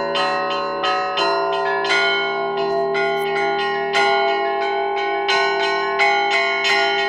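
Set of Danilov church bells being rung in Russian Orthodox style: quick strokes on the smaller bells, about three or four a second, over the long ringing of the larger bells.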